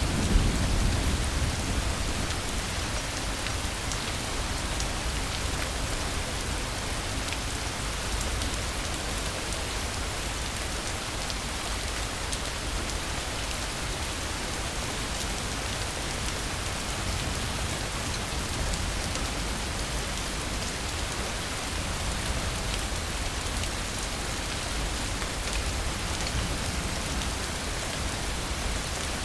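Steady rainfall: an even hiss of rain on surfaces with scattered individual drops. A brief low rumble comes in the first second.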